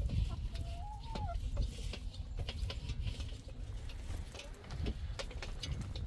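Chickens clucking, with one drawn-out call that rises and falls about a second in, over a low rumble and scattered small clicks.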